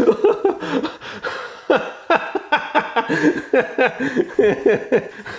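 A man laughing, a run of short chuckles one after another.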